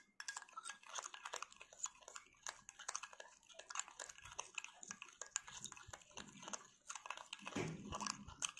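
A metal spoon beating a thick coffee-and-sugar paste in a glass bowl, a quick, irregular run of faint clicks and scrapes as the spoon hits and drags against the glass.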